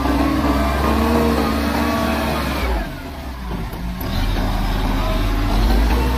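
Kubota tractor's diesel engine running steadily under load while it pushes soil with a front blade, the sound dipping briefly near the middle.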